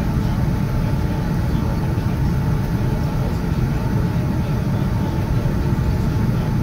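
Cabin noise in a Boeing 787-9 taxiing on its Rolls-Royce Trent 1000 engines, heard from a window seat: a steady low rumble of the engines at taxi power and the airliner rolling along the taxiway.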